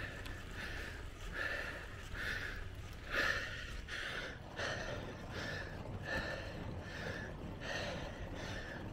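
A cyclist breathing hard and rhythmically while pedalling, each breath in and out audible, about two a second, over a steady low rumble of wind and road noise.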